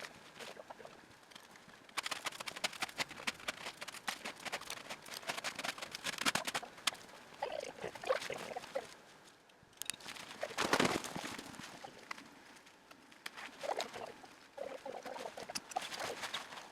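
Crunching and rustling handling noises from pitching a tent in snow: rapid crackly clicks for several seconds, with a louder burst around the middle.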